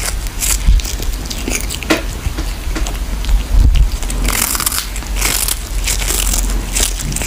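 A kitten biting and chewing on a small fish, irregular crisp crunches close to the microphone.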